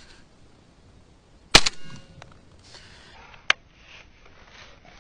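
A shotgun fires one loud blast about a second and a half in, with a short rumble after it. About two seconds later comes a sharper, quieter crack.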